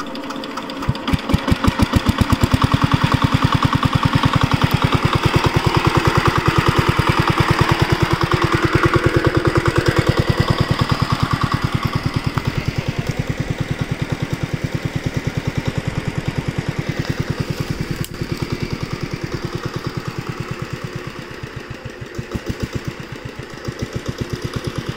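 Small single-cylinder diesel engine driving a water pump, picking up speed over the first couple of seconds and then running steadily with a rapid, even chugging.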